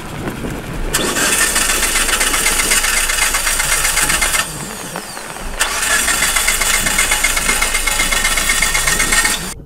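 Starter motor of a Mitsubishi Lancer Evolution rally car cranking, heard from inside the cabin, in two long attempts with a short pause between them, the engine not catching: the car has stalled after a spin.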